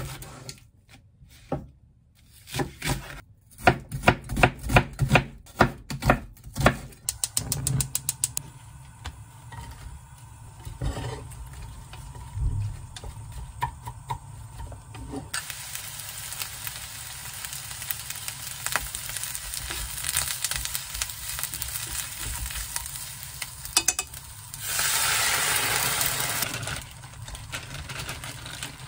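A kitchen knife chopping green onion on a wooden cutting board, a run of sharp strokes, then vegetables sizzling as they are stir-fried in a hot frying pan and stirred with chopsticks. Near the end the hiss grows louder for about two seconds.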